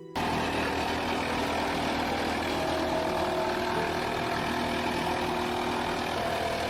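Heavy engine of a large wood grinder running steadily under power, a dense, even machine noise that cuts in suddenly right at the start.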